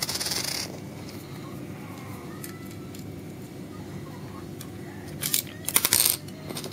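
Metal parts of a freeline skate being handled during assembly: a brief scraping rustle at the start, then a cluster of sharp metallic clicks and rattles about five to six seconds in as the skate's plate and hinge are moved.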